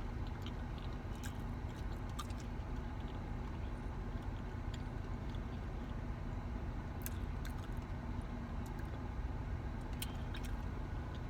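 A person chewing a taco, with a few faint crunches and mouth clicks. Under it runs a steady low hum.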